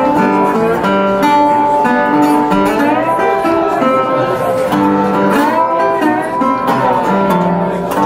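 Metal-bodied resonator guitar playing a blues, with notes sliding up and down in pitch between steadily held notes.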